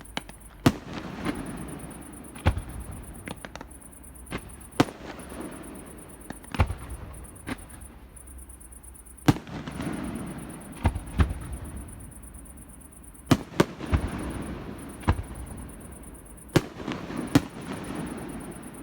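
Fireworks display: about a dozen sharp bangs at irregular intervals, some in quick pairs, each followed by a lingering rumble and crackle.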